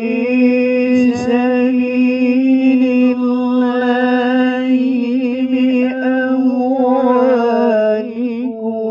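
A male qari reciting the Quran in the melodic tilawah style, drawing one long note out for about eight seconds. Quick wavering ornaments come in the middle and again near the end, where the pitch steps down.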